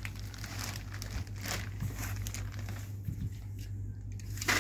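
Clear plastic wrapping crinkling and rustling in irregular bursts as it is handled around a packaged chair seat.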